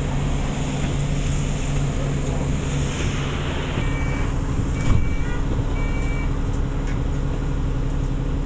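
Bus engine and road noise running steadily. Three short high beeps come about a second apart around the middle, with a thump among them.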